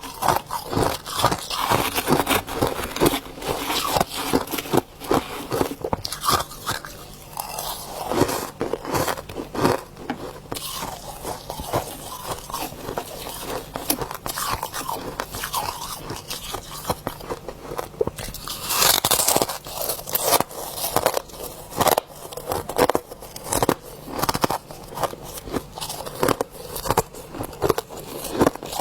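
Soft freezer frost being crunched and scraped, a continuous run of crisp, irregular crunches, with a louder, denser patch about two-thirds of the way through.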